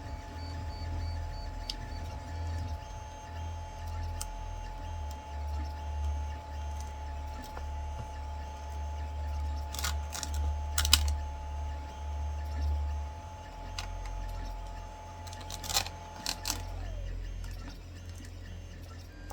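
Resin 3D-print supports being snapped off by hand, with a few sharp cracks a second or so apart about halfway through and again near the end. Under them runs a steady machine hum whose tone drops and stops shortly before the end.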